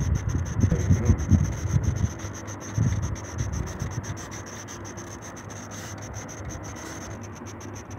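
Handling noise from a handheld phone being moved about: irregular low rubbing thumps in the first couple of seconds and again about three seconds in, then a steadier low hiss.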